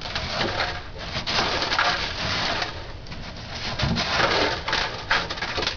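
Ice crunching and scraping in irregular bursts as frost is broken out of an old refrigerator during defrosting.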